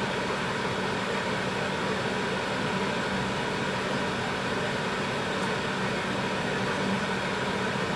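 Tteokbokki sauce boiling hard in a wide pan, bubbling steadily over a constant low hum.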